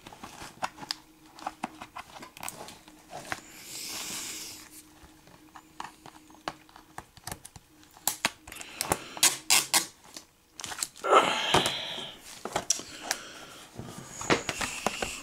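Hands handling a plastic Blu-ray case: scattered clicks and crinkling plastic, with a hissy rasp about four seconds in and a louder rasping tear of plastic about eleven seconds in.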